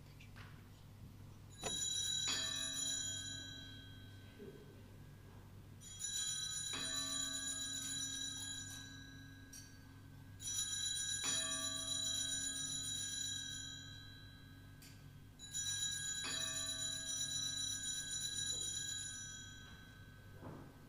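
Altar (sacring) bells rung four times, about every four and a half seconds, each shake giving a bright jangle that rings on for three or four seconds. At this point in the Latin Mass the bells mark the elevation at the consecration.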